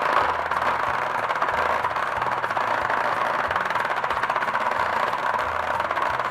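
Hasbro Bed Bugs game running: its motor shakes the plastic bed so the many small plastic bugs bounce and rattle in a steady, dense clatter.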